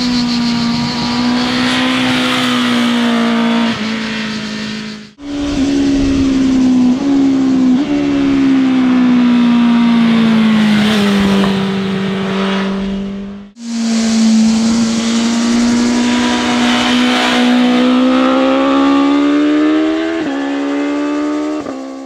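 BMW S1000RR's inline-four engine pulling hard through bends, its note rising and falling with several sudden pitch steps as it changes gear. The sound cuts out abruptly twice, about five and thirteen and a half seconds in, between three separate passes.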